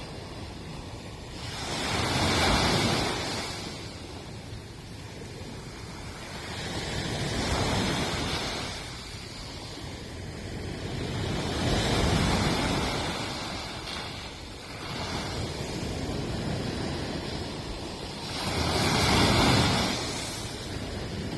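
Sea waves breaking on a beach, surf washing in four swells a few seconds apart, with a steady hiss of water between them and some wind on the microphone.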